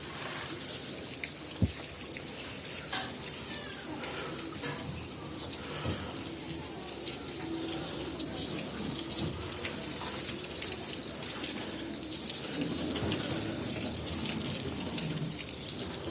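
Water running and splashing steadily, with scattered small knocks and a sharp click about a second and a half in.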